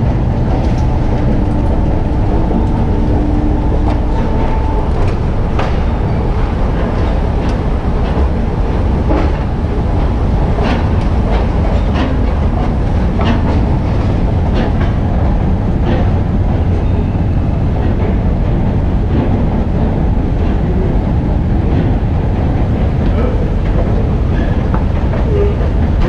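Moving escalator running with a steady low mechanical rumble, with irregular clacks of the steps and machinery, most frequent in the first half.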